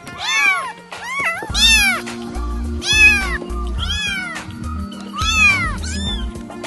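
Kittens meowing over and over, about seven high meows that each rise and fall in pitch, over background music whose steady bass beat comes in about a second and a half in.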